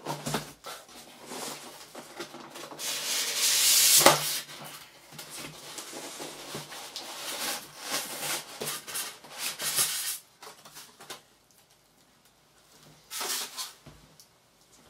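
Large polystyrene foam packing block scraping and rubbing against the cardboard carton as it is pulled out, loudest about four seconds in. After a quiet stretch, one more short rustle comes near the end.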